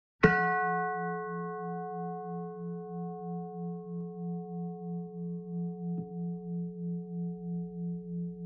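A bell-like tone struck once, ringing on and dying away slowly with a steady wavering pulse about twice a second.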